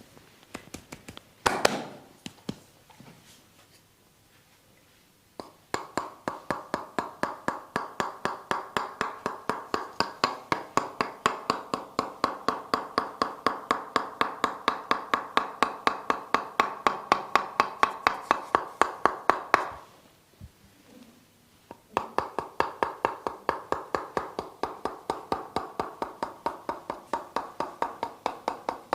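Rapid, rhythmic percussive massage strokes on the body, about five hollow-sounding taps a second, in two long runs with a short break in the middle. A single loud, sharp sound comes about a second and a half in.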